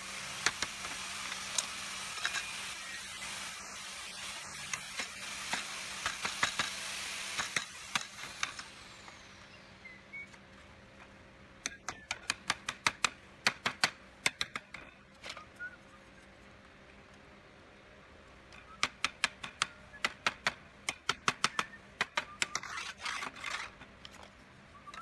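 Thin wooden louvre slats clacking against each other and against the notched frame rail as they are set in by hand: two runs of sharp wooden clicks, several a second, in the second half. A steady hissing noise with scattered clicks fills the first eight seconds or so.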